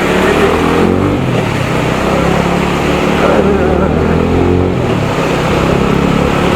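TVS Apache RTR 200 single-cylinder motorcycle engine running while riding, its pitch rising and falling with the throttle, over steady wind and road noise.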